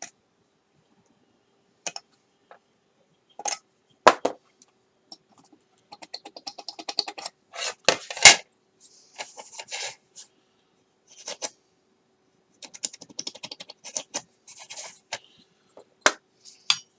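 Hobby knife scraping and trimming plastic on a model kit part, in short runs of rapid scratching strokes, with sharp clicks and taps as the plastic pieces are handled; the loudest click comes about eight seconds in.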